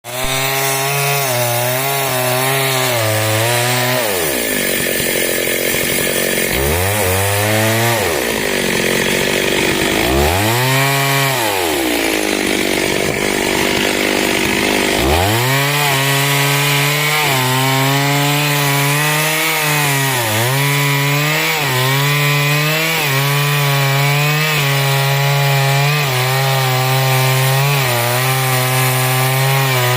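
Stihl chainsaw running at full throttle while splitting wood. The engine pitch sags deeply and recovers three times in the first half, as the chain bogs down under load in the cut, then holds high and steady with a few brief dips.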